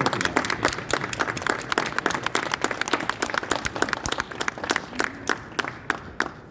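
Audience applauding: a burst of many hands clapping that starts suddenly and thins to a few scattered claps near the end.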